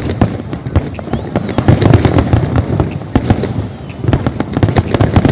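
Fireworks going off in a rapid barrage: many sharp bangs and crackles close together over deep booms.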